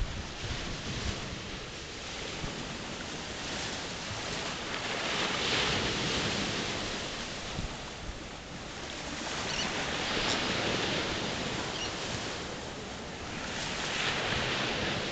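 Surf washing on a beach: a steady rush of noise that swells and eases every few seconds, with wind rumbling on the microphone.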